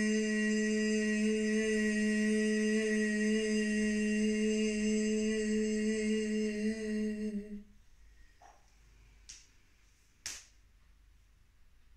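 A steady, held droning tone that fades out about seven and a half seconds in, leaving a quiet room with a few soft clicks.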